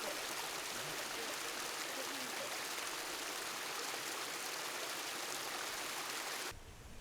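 Steady rushing of mountain water, a stream or waterfall, that cuts off abruptly near the end. A quieter, lower rumble takes over.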